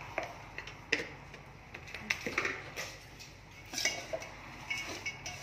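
Slotted stainless steel spatula stirring dry, crisp flattened-rice mixture in a stainless steel pot, with irregular metallic clinks and scrapes as it knocks against the pot.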